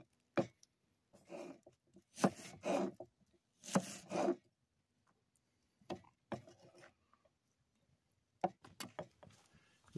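Kitchen knife cutting through a red onion and knocking on a bamboo cutting board: a series of crunchy cuts in the first half, then a few scattered short knocks and clicks.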